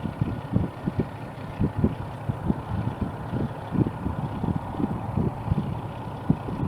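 John Deere S680 combine running steadily while harvesting corn, a constant machine drone with a faint steady whine. Irregular low gusts of wind buffet the microphone throughout.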